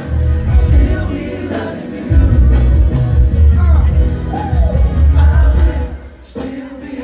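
Loud live R&B concert music: a heavy pulsing bass beat under a sung melody, with a short drop in the music about six seconds in.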